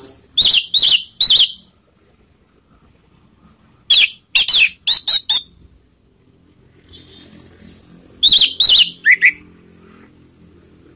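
Orange-headed thrush (anis merah) calling in three quick runs of short, sharp, high notes, about three, then six, then four notes, a few seconds apart.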